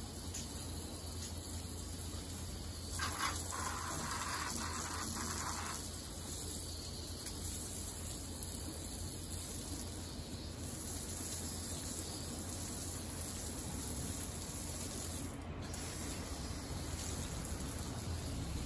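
Water spraying steadily from a garden hose nozzle onto potted plants and paving, louder for a few seconds about three seconds in.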